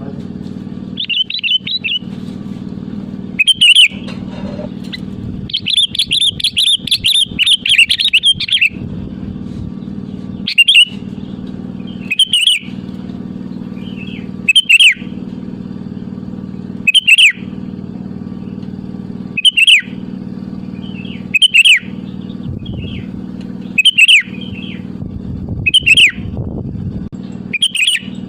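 Sooty-headed bulbul (kutilang) calling: short sharp calls about every two seconds, with a longer burst of chattering song around six to eight seconds in. A steady low hum runs underneath.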